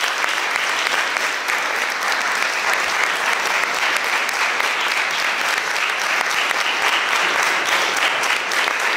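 Audience applauding: many hands clapping together in a steady, unbroken din.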